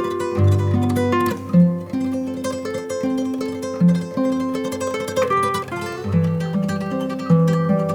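Background music of plucked acoustic guitar playing a gentle melody.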